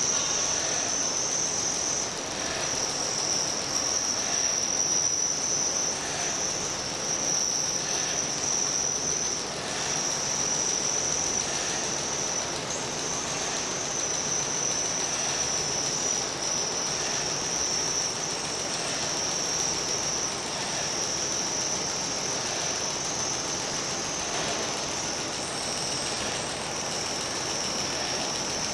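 Small electric motors of a found-object sound installation running: a steady high-pitched whine with faint irregular clicking beneath it.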